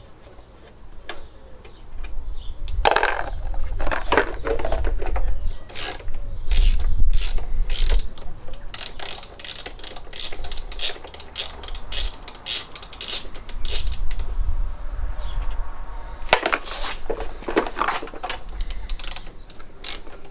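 Socket ratchet wrench clicking as nuts are undone on a Fiat 500 engine's cylinder head, in several runs of rapid clicks.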